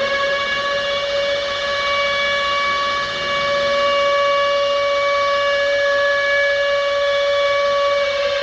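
Civil defense siren wailing on one steady pitch, its tone held level throughout.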